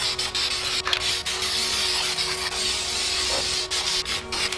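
Aerosol spray can of gloss clear coat hissing steadily as the final, heavier coat is sprayed onto a painted alloy wheel, with brief breaks in the spray about a second in and again near the end.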